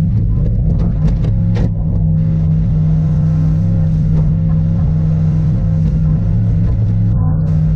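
Wheeled excavator's diesel engine running steadily under work. A few short clacks come about a second in.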